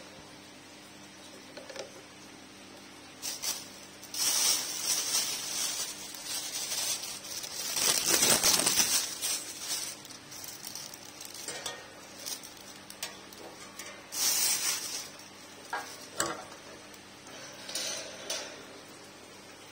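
Parts of a KDK YU50X wall fan being handled and fitted onto the motor shaft: uneven bursts of rustling and scraping with a few sharp clicks and knocks.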